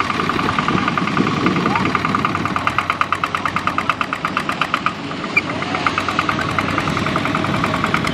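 Kubota RT120 walking tractor's single-cylinder diesel engine running steadily with a rapid, even chug while pulling a trailer loaded with rice sacks.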